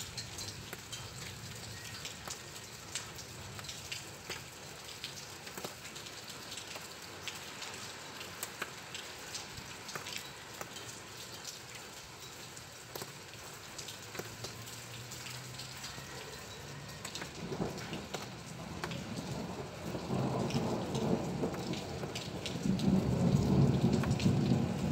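Thunderstorm: rain falling, with many sharp drop ticks. Past the middle, a low roll of thunder builds and is loudest near the end.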